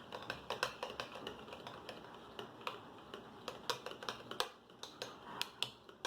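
A mixing utensil clicking and tapping against its container as slime glue is stirred with freshly added activator, in quick irregular clicks, several a second.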